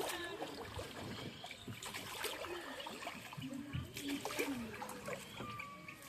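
Water splashing and lapping around a small rowed boat, with the slap of oar strokes, and short pitched calls from time to time.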